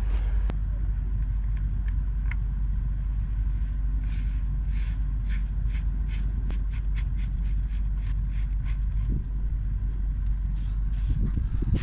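A steady low rumble in the background, with scattered light clicks and scrapes of a pipe wrench working a threaded steel fitting on top of a gas meter.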